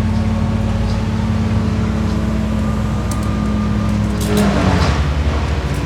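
A large engine running steadily at a low, even pitch, which drops to a lower speed about four seconds in.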